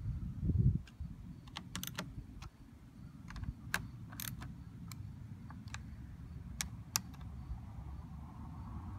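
Scattered small clicks and taps of a screwdriver working the screws in the plastic back of a 1999 Ford F-350 instrument cluster, over a steady low rumble. A few dull knocks come in the first second.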